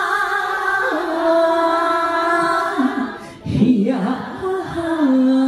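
A woman singing into a handheld microphone, holding long high notes on a trot phrase that steps down in pitch. A short breath about three seconds in, then a second held phrase.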